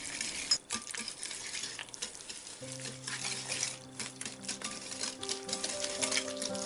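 Wire whisk beating eggs, sugar and pumpkin puree in a bowl: a quick, continuous run of wet slapping and the wires clicking and scraping against the bowl's sides. Soft background music comes in about two and a half seconds in.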